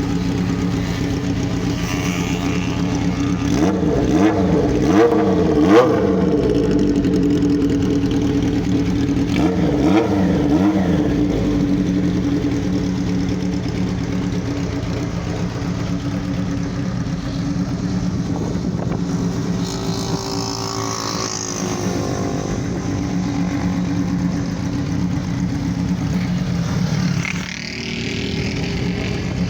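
Honda CBX 750F motorcycle's air-cooled inline-four engine running at idle, revved up and back down several times about four to six seconds in and again around ten seconds in, then settling to a steady idle.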